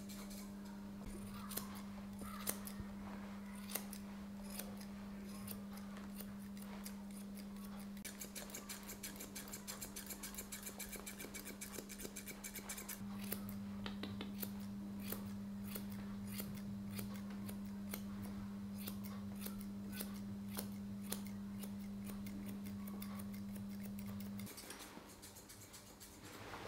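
Steel grooming scissors snipping a poodle's fur in short, crisp snips: scattered at first, then a quick run of snips about a third of the way in, then sparser again. A low steady hum runs underneath and stops near the end.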